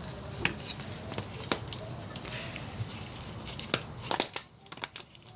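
Rolled-up paper and a thin plastic water bottle crinkling and crackling in uneven small clicks as the paper holding baking soda is pushed into the bottle.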